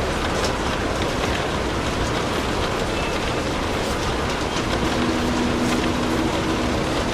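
Steady rain with the light crackle of a fireplace fire. About five seconds in, a faint low two-note hum sounds for about two seconds.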